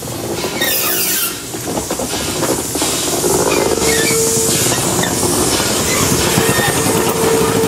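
1923 Porter 0-4-0 steam locomotive passing close by: steam chuffs, clanking running gear and wheels on the rails. A short burst of steam hiss comes about a second in, and a thin steady squeal sets in about four seconds in and carries on to the end.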